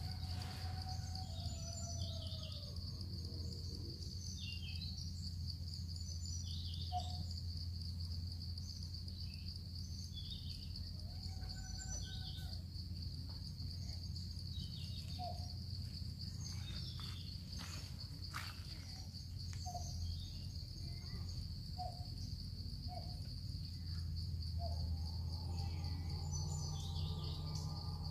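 Insects droning steadily in one high, unbroken tone, with scattered short bird chirps and a few brief calls over a low steady hum.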